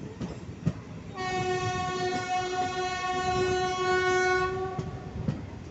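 Train horn sounding one long steady blast of about three and a half seconds, starting about a second in, over the clatter of wheels over rail joints, heard from inside a moving carriage.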